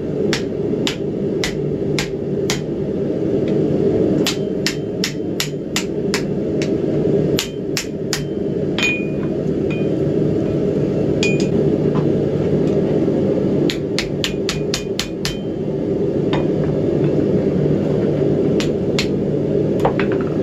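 Hand hammer striking red-hot mild steel on an anvil in bursts of quick blows, with a short ring after a few strikes, as the strip is bent around to form a wrapped tomahawk eye. A steady low noise runs underneath.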